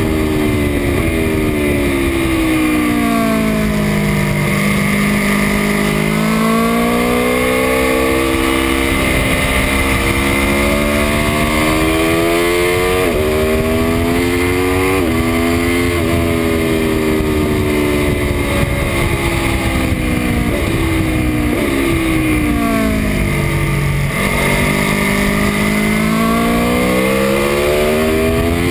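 Aprilia Tuono V4 RR's V4 engine on a track lap. It slows with the revs dropping into a corner, then pulls hard through the gears, the pitch climbing and snapping down at each upshift. It slows again for the next corner and accelerates near the end, under steady wind rush on the microphone.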